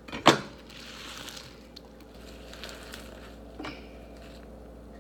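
A chef's knife strikes a wooden cutting board once with a sharp knock, followed by the rustle of chopped fresh spinach leaves being gathered up, and a lighter knock near the end.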